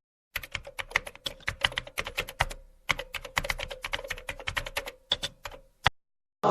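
Typing on a keyboard: a quick, irregular run of key clicks with a short pause about halfway through, stopping shortly before the end.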